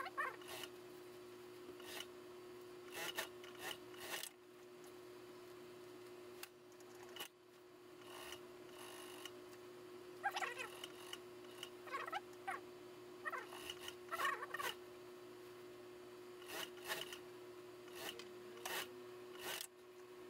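Cloth rustling and rubbing as suit fabric and lining are handled and shifted about at a sewing machine, in irregular short bursts, over a steady hum.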